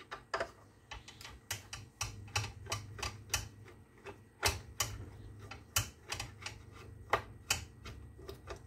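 Irregular light clicks and taps of small metal tools on the parts of a circular saw being taken apart, a few a second, over a low steady hum.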